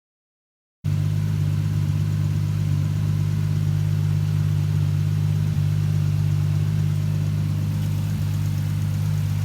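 Turbocharged 2JZ inline-six engine in a Toyota Supra idling steadily, cutting in suddenly about a second in.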